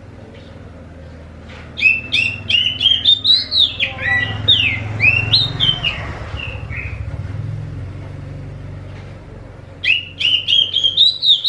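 Oriental magpie-robin (kacer) singing in full song: a fast run of varied whistled notes, rising and falling, starting about two seconds in and lasting some five seconds, then a second run near the end after a pause. A low steady hum sits under it.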